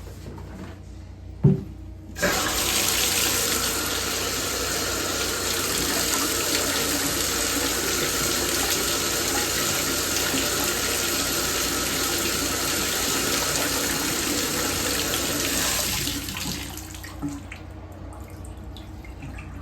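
Bathtub faucet running at full flow, turned on abruptly about two seconds in and shut off about sixteen seconds in, after a short knock.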